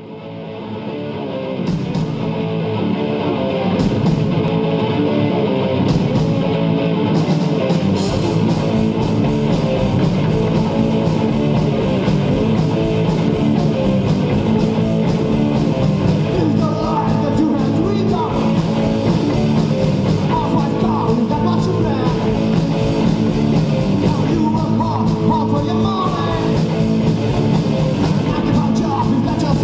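Live punk rock band playing: electric guitars and bass, with the full drum kit filling out about a quarter of the way in. A voice sings or shouts over it from about halfway.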